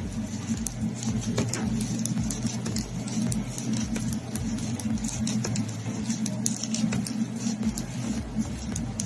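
Knitting needles clicking and scraping as stitches are worked, with quick, irregular ticks and the rustle of yarn and fingers, over a low steady hum.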